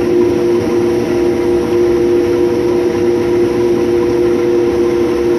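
Case IH 6130 combine harvester running steadily while cutting wheat: a constant machine drone with a steady hum over it.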